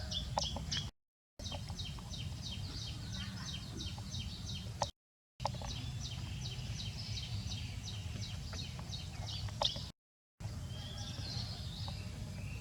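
A bird chirping rapidly and repeatedly, about four short high chirps a second, over a steady low background rumble, with the sound cutting out briefly three times.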